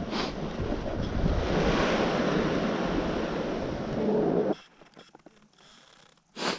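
Wind buffeting the microphone, a loud steady rushing rumble that cuts off abruptly about four and a half seconds in. After it, a few faint clicks and a short sharp burst of noise near the end.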